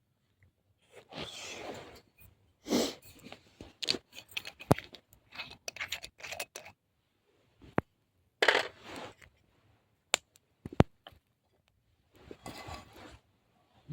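Irregular handling sounds: short rustling and scraping bursts mixed with sharp clicks and taps, as things are picked up and set down.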